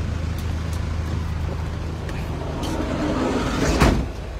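A vehicle engine running steadily, with a loud clatter near the end as a wheeled ambulance stretcher is pushed into the back of the ambulance.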